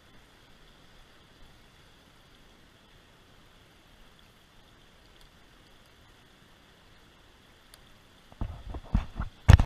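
Creek water rushing faintly and steadily, then near the end a quick run of loud thumps and knocks close to the microphone.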